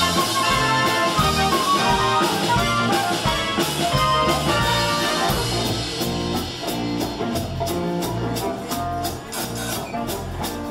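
Instrumental boogie-woogie swing music, with guitar and drums keeping a steady beat and no singing.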